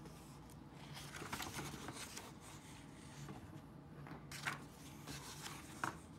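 Paper page of a picture book being turned by hand: soft rustling, then a louder swish about four and a half seconds in as the page sweeps over, and a short tap near the end as it settles.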